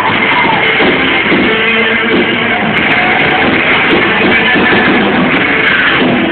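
Rock band playing live, a distorted electric guitar riff leading over drums and bass, recorded loud on a phone in the audience.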